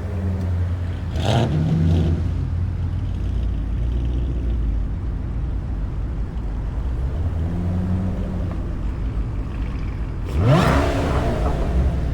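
Car engine idling with a low, steady rumble. It is blipped briefly about a second in, then revved near the end, its pitch rising sharply.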